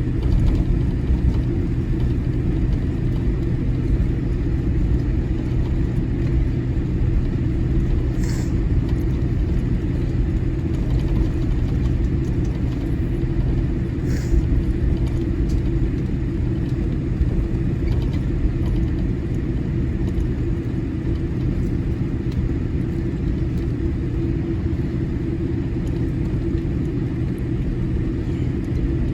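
Steady low rumble and hum heard inside the cabin of a Boeing 787-8 airliner taxiing on the ground, with two brief faint clicks about a third and halfway through.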